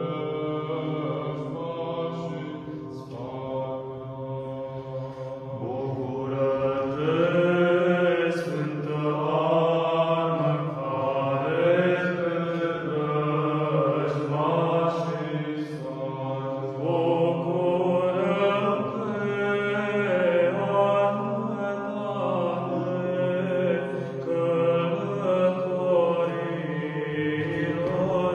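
Male monastic choir of four monks singing Orthodox church chant unaccompanied, with a steady held low drone under a slowly moving, melismatic melody.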